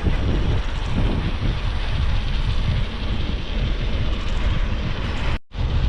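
Wind buffeting a camera microphone and tyre rumble on a bicycle ridden fast, a steady low rumbling noise. It cuts out briefly about five and a half seconds in.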